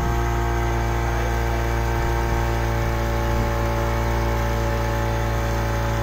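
A 40 hp outboard motor running steadily at speed, driving a fiberglass speedboat, an even engine drone with the rush of the boat's wake under it.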